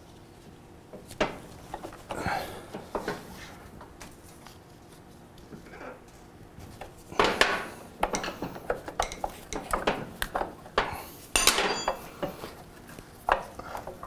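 Irregular metallic clinks, knocks and clatter as motorcycle rear-suspension parts are wrestled loose by hand. The handling is sparse at first and busier in the second half, with a short metallic ring about eleven and a half seconds in.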